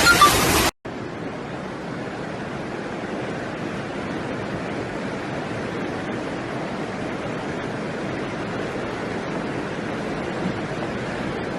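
Steady rushing of floodwater. It starts with a louder, harsher rush that cuts off abruptly less than a second in, then a quieter, even rush carries on.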